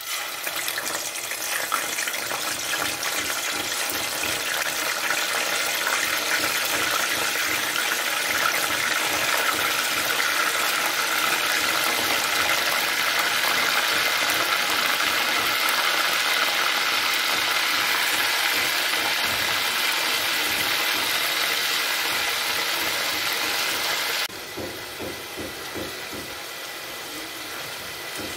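Chicken pieces sizzling loudly as they shallow-fry in hot oil in a pot, the sizzle starting as the first piece goes in. About 24 seconds in it drops abruptly to a quieter sizzle as the pieces are turned with tongs.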